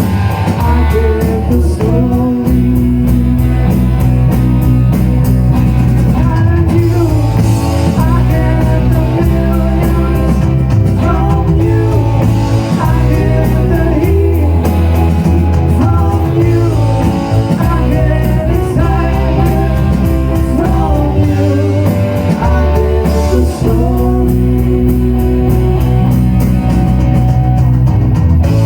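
A rock band playing a blues-rock song with a singer, guitar, bass and drums, loud and continuous.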